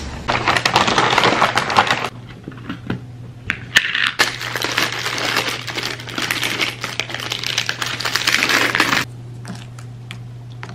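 Paper takeout bag rustling and crinkling for about two seconds, then, after a short pause, a thin plastic utensil wrapper crinkling for about five seconds, stopping suddenly.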